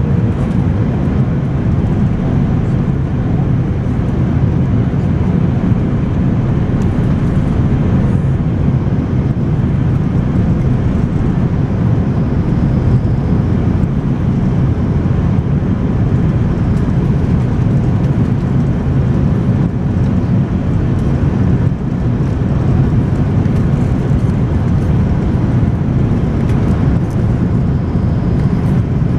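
Steady cabin noise of an Airbus A330-300 on approach: its Rolls-Royce Trent 700 turbofans and the rushing air, heavy and low, heard from a seat beside the wing.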